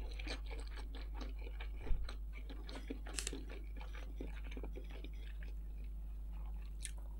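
A person chewing a mouthful of rice stir-fry with the mouth closed: soft, quick wet mouth clicks over a faint, steady low hum.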